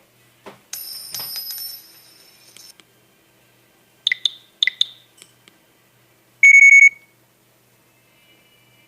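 Nokia 3110 classic mobile phone's electronic beeps: a short high tone, then four short beeps in two quick pairs, then a louder half-second buzzy beep, the loudest sound, with a faint tone near the end.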